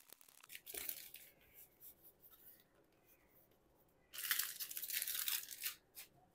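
Foil booster-pack wrappers crinkling and rustling as trading cards are pulled out of cut-open packs. There is a short burst about a second in and a longer, louder stretch of crinkling from about four to six seconds in.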